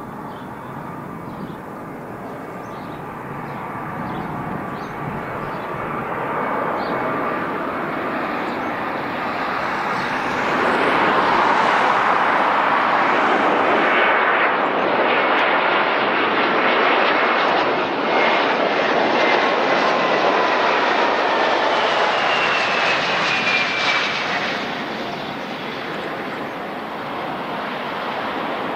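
Jet airliner's engines passing by: the sound builds, is loudest for about a dozen seconds, then eases off. Its whine slides down in pitch as the aircraft goes past.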